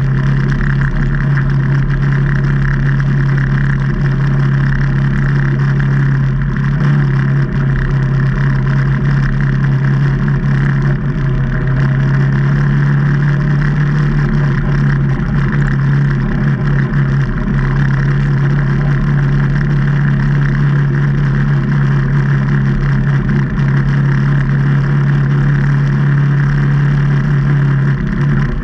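Can-Am Maverick Trail 800 side-by-side's Rotax 800 V-twin engine running at a steady, even speed with little change in pitch.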